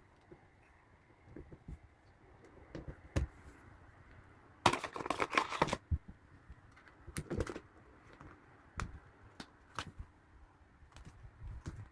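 Small plastic jigsaw puzzle pieces being handled and snapped into place: scattered light clicks, with a quick clattering run of clicks about five seconds in.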